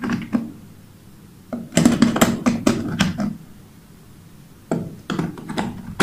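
Clicks and knocks of colour bulbs being pushed and twisted into plastic lamp holders on a board: a short click near the start, a busy run of clatter about two seconds in, and more near the end.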